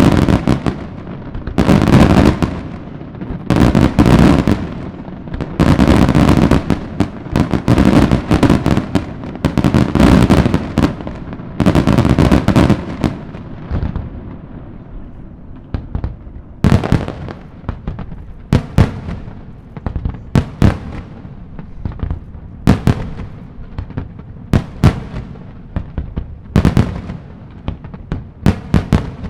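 Daytime fireworks display: a barrage of loud bangs from bursting shells. For about the first half the bangs come in dense, rumbling volleys; after that they thin out into sharp, separate reports, several a second.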